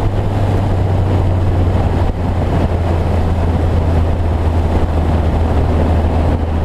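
Ariel Atom 3.5's supercharged Honda 2.0-litre four-cylinder engine running at a steady low drone under way, heard from the open cockpit with wind and road noise. Its pitch dips slightly in the first second, then holds steady.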